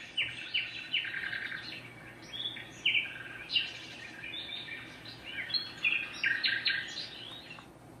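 Recorded birdsong played by a Renpho white noise sleep machine: a string of quick chirps and trills that cuts off suddenly near the end as the machine switches to its next sound.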